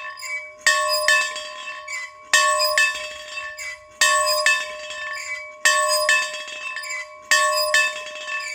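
A bell being rung, struck in pairs about half a second apart, one pair roughly every second and a half, five double strokes in all, each stroke ringing on.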